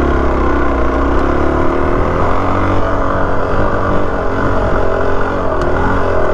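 Suzuki DR-Z400S's single-cylinder four-stroke engine under load on a hill climb, its revs rising and falling as the throttle is worked.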